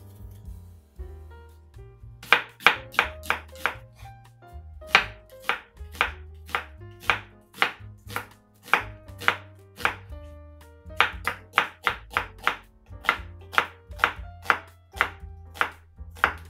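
Kitchen knife slicing onion on a wooden cutting board: sharp knocks, about two a second, begin about two seconds in and go on with short pauses.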